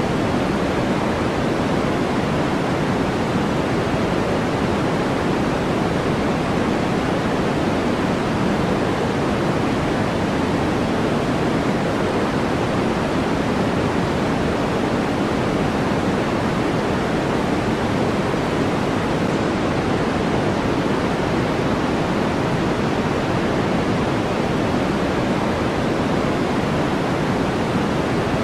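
Steady white noise from a sleep and focus noise track: an even, unbroken rushing hiss that never changes in level, fuller in the lows than in the highs.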